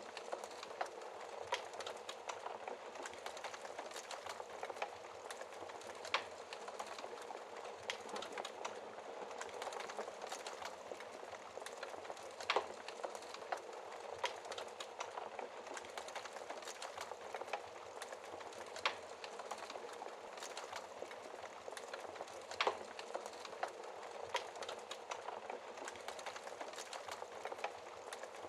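Wood fire burning in a fireplace: a steady low hiss and rustle of flames with irregular crackles and sharper pops every few seconds.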